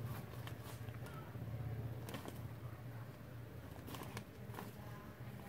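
Crumbly manure scattered by hand onto soil: soft patter with a few short sharp rustles near the start and about four seconds in, over a steady low hum.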